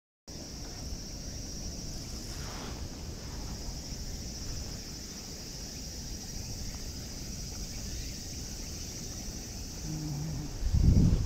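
Steady high insect chirring over a low rumble, with a short low thump near the end.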